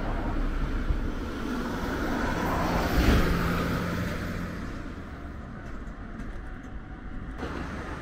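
Road traffic going by, with one vehicle passing loudest about three seconds in.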